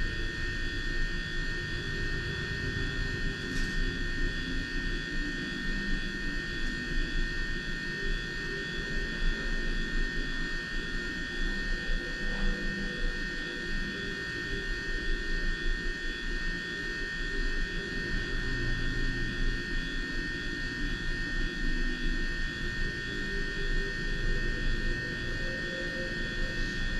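Steady background whir and low hum with a constant high-pitched whine, unchanging throughout.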